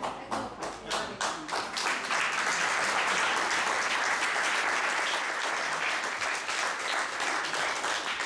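Audience applauding: scattered claps that build into full, even applause after about two seconds, then thin out again near the end.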